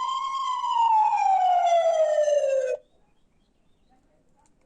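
Fire engine siren: a single long wail that rises and then falls in pitch, cutting off suddenly after nearly three seconds.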